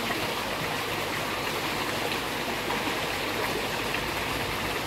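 Steady running water of a koi pond, water flowing and splashing into it without a break.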